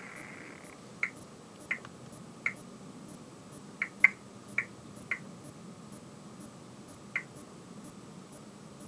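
Model Class 20 diesel locomotive's sound decoder, with the loco standing still: about eight short, sharp, high chirps at irregular spacing over a faint steady hum, after a steady high tone that cuts off under a second in.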